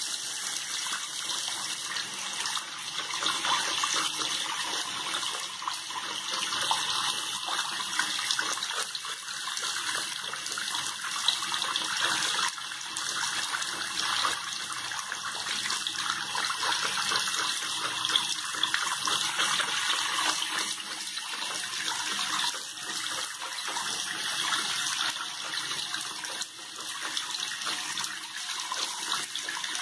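Tap water running steadily into a basin, splashing on the bottom and swirling down the drain.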